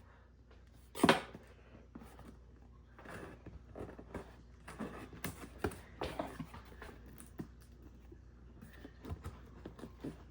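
Cardboard ceiling-fan box being opened by hand: one sharp loud noise about a second in, then scattered rustling, scraping and clicking of cardboard and packing.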